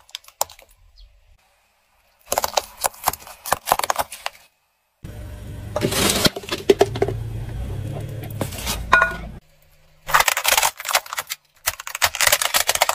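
A car tyre rolling over and crushing plastic objects, in three separate runs of cracking and snapping plastic. The middle run has a steady low rumble under the crunching.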